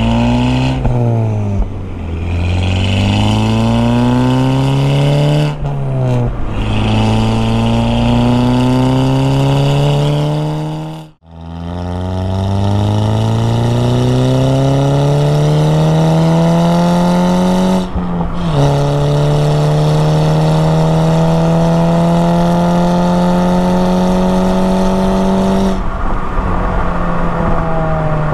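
MK6 Golf GTI's turbocharged 2.0-litre four-cylinder, breathing through an APR turboback exhaust with a catless downpipe, accelerating hard through the gears. The engine note climbs steadily and falls sharply at each upshift, then drops away as the driver lifts off near the end.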